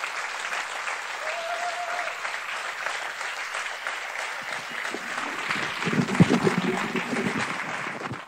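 Audience applauding in a hall at the end of a talk. The clapping gets louder about six seconds in, then cuts off at the end.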